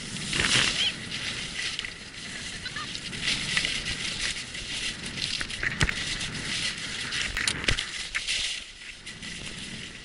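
Skis scraping and hissing over packed snow on a downhill run, the noise swelling and easing with the turns, with scattered sharp clicks.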